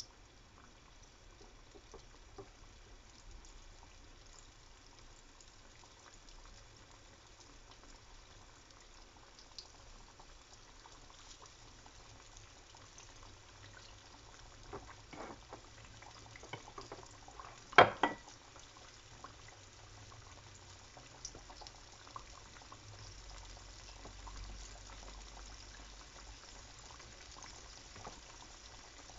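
Flour-dredged chicken thighs frying in shallow oil in a pan: a steady bubbling sizzle that grows livelier as the oil comes up to heat. A sharp double click a little past halfway.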